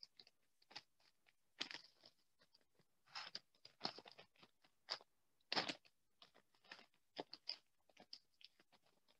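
Newspaper crinkling and rustling in irregular short bursts as a paper bag made from it is folded and creased by hand.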